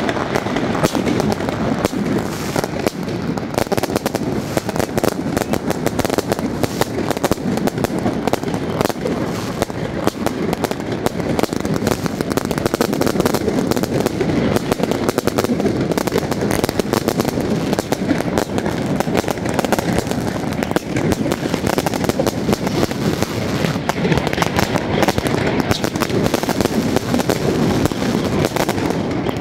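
Many fireworks and firecrackers going off at once in a dense, continuous crackle of pops and bangs, with voices underneath.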